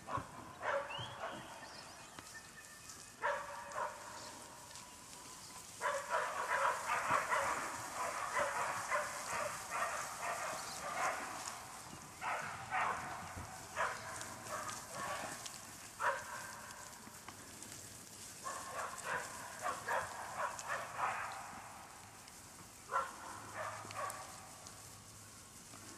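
A Kelpie cross working dog barking while herding goats, in repeated runs of quick barks with short pauses between them.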